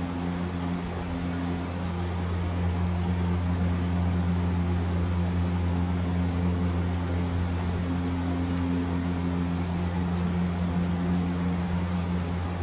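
A steady low mechanical hum runs throughout. Over it come a few faint, sharp clicks of scissor blades snipping through folded paper.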